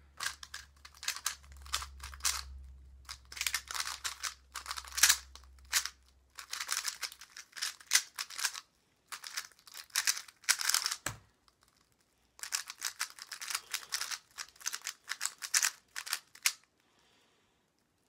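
GuoGuan Yuexiao Pro 3x3 speedcube being turned very fast by hand: bursts of quick plastic clicking and clacking from the layers, broken by short pauses, with a single dull knock about eleven seconds in. The turning stops about a second before the end.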